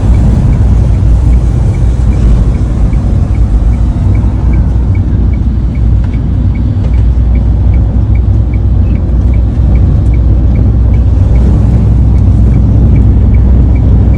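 Strong gusting wind buffeting a car, heard as a loud, steady low rumble that shakes the car. A faint regular ticking repeats about three times a second.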